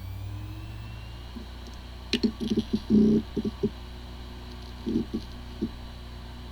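Hard drive running with a steady hum and a faint whine rising in pitch over the first second or so. A burst of quick clicks and ticks follows about two seconds in, and a few more come near five seconds. It sounds like a healthy drive, but the drive has corrupted disk firmware, so the computer cannot detect it.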